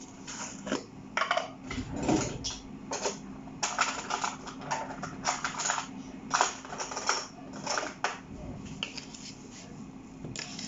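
Kitchen work sounds: an irregular run of short scrapes, clicks and clatters, as of utensils, dishes and food being handled, over a steady low hum.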